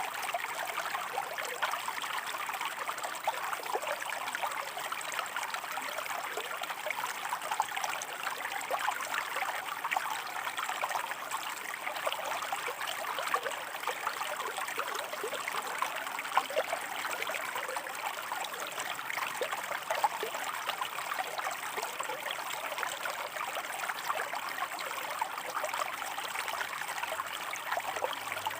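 Shallow stream water running and splashing over rocks, a steady babble with many small trickling splashes.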